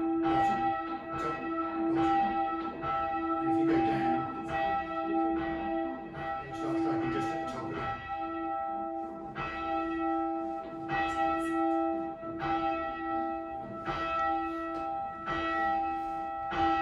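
A single church tower bell, swung on its rope from the down position, with its clapper striking a little more than once a second at slightly uneven intervals. The bell's hum rings on between strokes.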